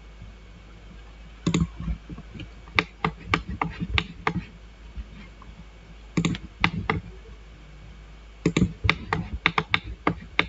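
Computer keyboard and mouse clicking in irregular clusters of sharp clicks, with short pauses between, as points are picked and keys pressed while drawing in AutoCAD.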